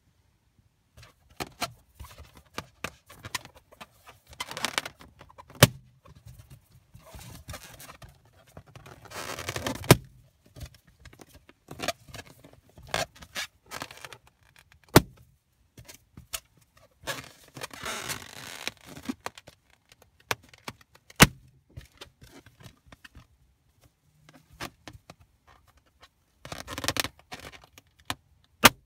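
Month-old latex balloons squeezed by hand until they burst: five sharp pops several seconds apart, with rubbing and squeaking of the latex under the hand between the pops.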